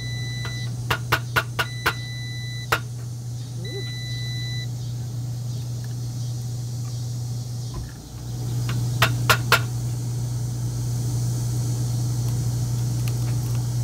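An electric cooking appliance beeping three times with long, high, steady tones, with a quick run of sharp clicks among the beeps, three more clicks later, and a steady low hum that dips and then comes back louder about eight seconds in.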